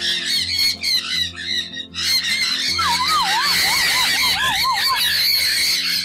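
A flock of sun conures calling with many shrill squawks, thickening into a dense chatter about two seconds in, over background music.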